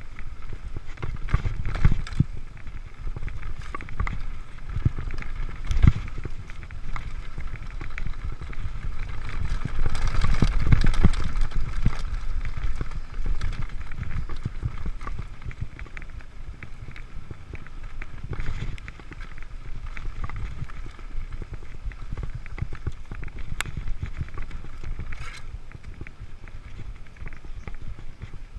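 Mountain bike rolling fast over a dirt singletrack: a steady low rumble of tyres on the trail with frequent knocks and rattles from the bike over bumps, louder for a couple of seconds about ten seconds in.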